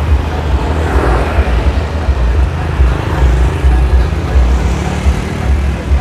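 Street traffic at a town intersection: motor scooters passing close by, with a swell as one goes past about a second in, over a heavy low rumble. No horn is sounded.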